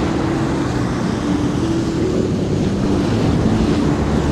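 Ocean surf washing and wind on the microphone, with a steady low hum underneath.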